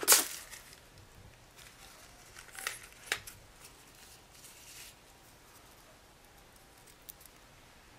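Scissors snipping through a rubber balloon: one sharp snip at the start, then softer snips, clicks and rustling about three seconds in, and a single light tick near the end.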